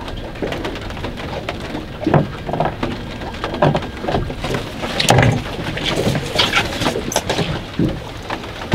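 Rain pattering, with steady wind-like noise and irregular knocks and rustles of close handling.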